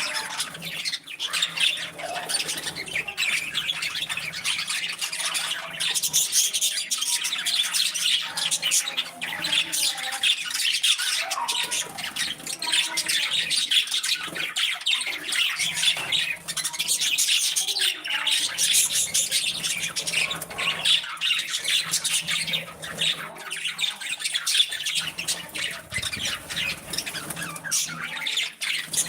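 A group of budgerigars chattering continuously, a dense mix of rapid chirps, warbles and squawks.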